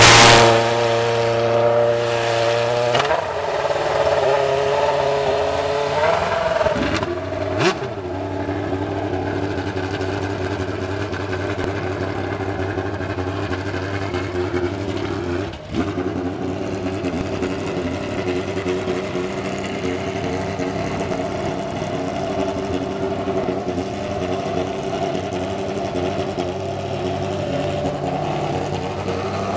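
Lotus Formula One car's V8 racing engine running just after being fired up: its pitch shifts a few times in the first eight seconds, then it settles into a steady idle.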